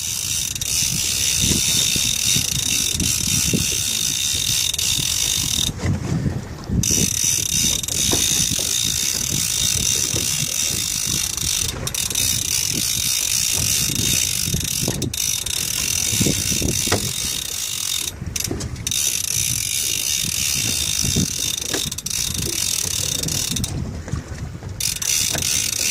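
Conventional trolling reel cranked steadily against the weight of a large hooked bluefish, its gears giving a continuous ratcheting whirr that stops briefly twice. Beneath it is the low rumble of a Mercury outboard running at trolling speed.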